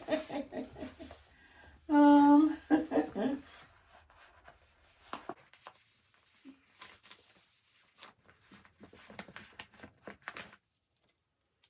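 A short humming 'hmm' and a few murmured words, then faint scattered clicks and rustles of paper stickers being peeled from their sheet and pressed on, stopping about a second before the end.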